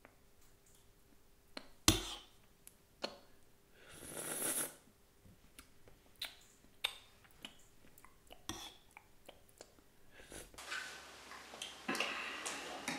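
A metal spoon clinking now and then against a ceramic soup bowl, the loudest click about two seconds in, with a short slurp of soup from the spoon about four seconds in. More spoon-and-bowl clinks come in quicker succession near the end.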